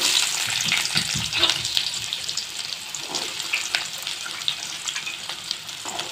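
Chopped shallots hitting hot oil in a kadai, frying with a sudden loud sizzle full of small crackles that eases over a few seconds into a steadier sizzle.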